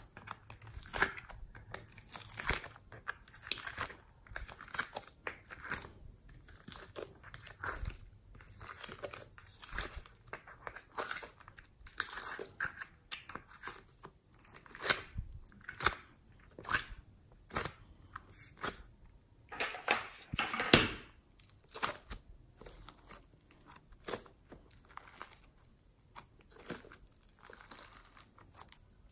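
Hands squeezing and pulling soft clay and foam slime out of a flexible plastic tray mould, then stretching it: irregular wet squishing and crackling pops with crinkling of the plastic. The loudest cluster of crackles comes about two-thirds of the way through.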